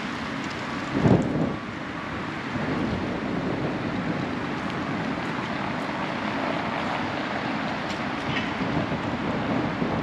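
Street ambience: a steady rumble of traffic noise with some wind on the microphone, and a brief louder rumble about a second in.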